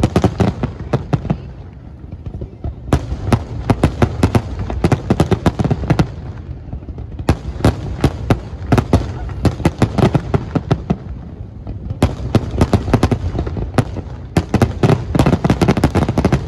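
Fireworks display: rapid runs of sharp cracks and bangs, coming in four clusters of a few seconds each with brief lulls between.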